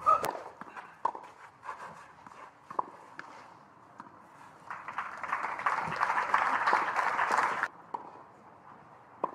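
Tennis ball struck on serve and then back and forth in a short rally, roughly a second between shots. Then the crowd applauds for about three seconds, stopping suddenly.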